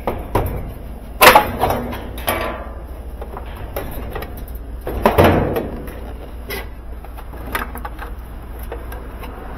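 Plastic-and-metal clunks and rattles as a top-load washing machine's control console is pried loose and tilted back off the cabinet top, with a sharp knock about a second in and another about five seconds in.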